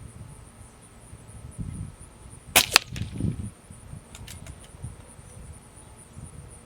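A single shot from a .22 Benjamin Marauder precharged pneumatic air pistol: a sharp crack about two and a half seconds in, with a second sharp crack a fraction of a second after it. Fainter clicks and low bumps come after the shot.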